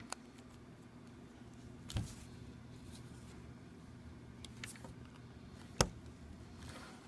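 A few sharp clicks of a plastic car key fob case being pried apart, over a low steady hum; one click comes about two seconds in and the sharpest near the end.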